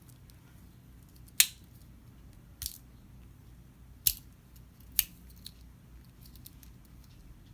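Four sharp, separate clicks of a Victorinox Camper Swiss army knife's folding tools snapping against their backsprings as they are handled.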